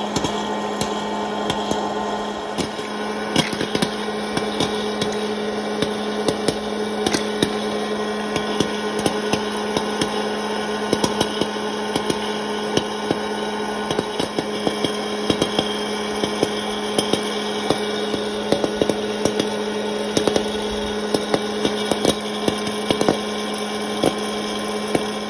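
Hello Kitty hot-air popcorn machine running, its blower making a steady hum while corn kernels pop in frequent, irregular sharp pops.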